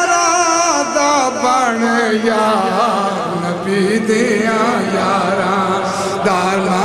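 A man singing a Punjabi devotional song in praise of the Prophet's companions, drawing out long melismatic notes with a wavering vibrato.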